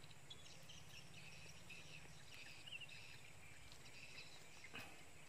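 Near silence: faint outdoor ambience with scattered soft high-pitched chirps and one soft click near the end.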